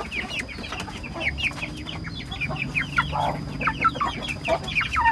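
Young chickens peeping: a steady stream of short, high calls, each falling in pitch, several a second.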